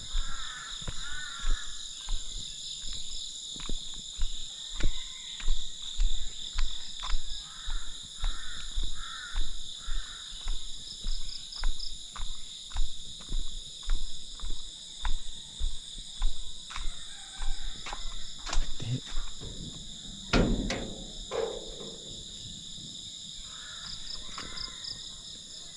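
A steady, shrill chorus of insects, such as crickets, holds several high pitches at once. Under it are regular low thumps of footsteps about once a second, which stop about two-thirds of the way through, followed by a couple of louder knocks.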